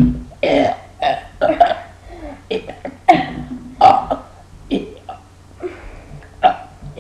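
A string of about ten short burps, one every half second or so, with the loudest at the very start.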